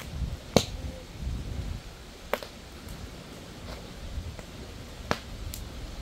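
Wood fire crackling: three sharp pops at irregular intervals, the first the loudest, with fainter ticks between them over a low rumble.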